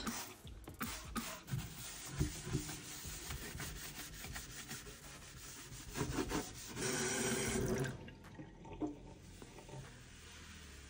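Scrubbing of a stainless-steel kitchen sink with a sponge: a run of short rubbing strokes. About seven seconds in comes a brief, louder steady rush, followed by softer wiping with a cloth.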